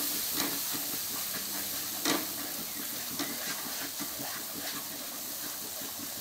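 Yogurt-and-spice masala sizzling in hot oil in a kadai while being stirred constantly with a spatula: a steady frying hiss with a few sharp clicks of the spatula against the pan, the loudest about two seconds in.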